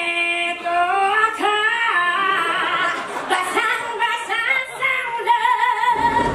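A woman singing a solo musical-theatre line with little or no accompaniment, her voice wavering with strong vibrato and ending on a long held note; a deep low sound, the band, comes in just at the end.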